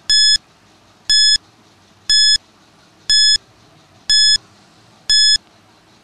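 Countdown timer sound effect: a short, high electronic beep once a second, six times, counting down the seconds left to answer.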